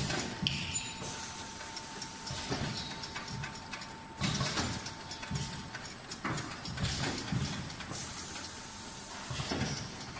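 Automatic 5 L piston filling and screw-capping machine running: irregular mechanical knocks and clunks with bursts of hiss. A faint steady tone runs through the first half and stops a little before the middle.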